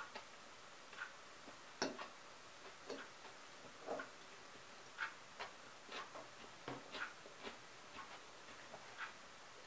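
A clock ticking quietly about once a second, with a few irregular clinks of a fork against a ceramic bowl in between.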